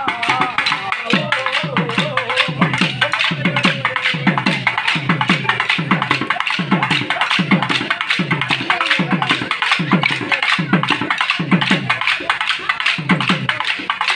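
Live bhajan music from a folk group: a drum beats a steady pulse of low, downward-sliding strokes, about three every two seconds, under constant sharp clicking percussion. A melody line fades out around four seconds in.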